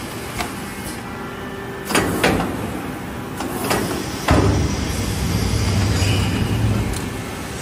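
Air-bubble film slitting machine (PRTC-1600) running with a steady mechanical noise, broken by four sharp knocks between about two and four and a half seconds in. After the last knock a low hum sets in and fades out about seven seconds in.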